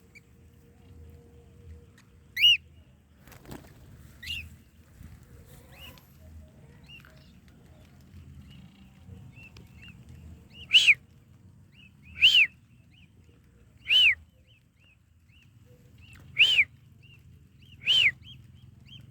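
Lovebird giving short, shrill chirping calls, each rising and falling in pitch. Two come early, then five loud ones about every one and a half to two and a half seconds in the second half, with fainter chirps between.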